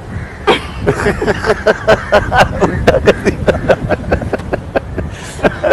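Hearty laughter: a long run of quick laughing bursts, about four or five a second, lasting some five seconds.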